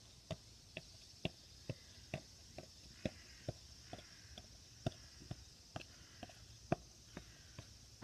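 A regular series of short, sharp knocks or taps, a little over two a second, evenly paced.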